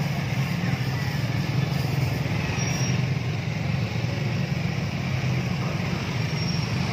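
A line of motor scooters and small motorcycles riding slowly past one after another, their engines blending into a steady low drone.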